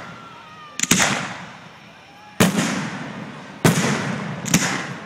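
Aerial firework shells bursting overhead: four loud bangs a second or so apart, each trailing off in a long fading echo.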